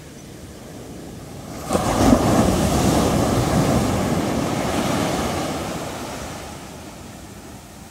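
A sea wave breaking on the beach. The surf builds and crashes suddenly just under two seconds in, then the wash runs up the shore and slowly fades.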